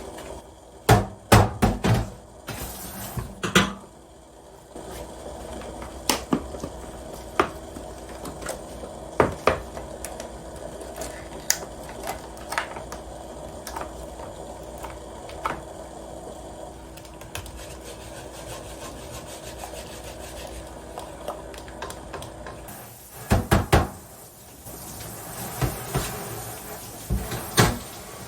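Kitchen handling sounds: scattered knocks and clatters of utensils and dishes on wood and pots, over a steady low hum. The knocks come in short clusters about a second in and again near the end.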